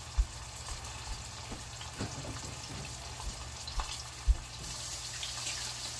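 Cooking oil sizzling under a beef roast in a stainless steel pot, a steady hiss with scattered small pops and crackles as the pot heats for searing; the sizzle grows brighter about two-thirds of the way in. Two dull low thumps stand out, one near the start and one past the middle.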